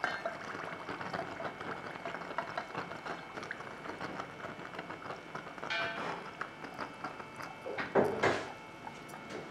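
Hot steel cross quenched in oil to harden it: the oil sizzles and crackles as it flares up around the blade, with two louder surges, the second near the end.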